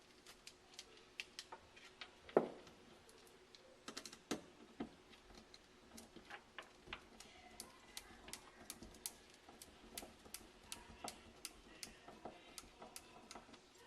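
A screwdriver turning screws into a plastic mounting plate on a wall: a long run of faint small clicks and ticks, growing more even, about three a second, in the second half, with one louder knock about two and a half seconds in.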